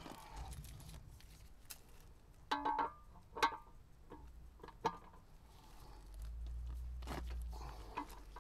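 A few sharp metallic clinks with brief ringing, from a ratchet, extension and socket being handled and fitted onto a plug under a Kubota KX-040 mini excavator, with a low rumble near the end.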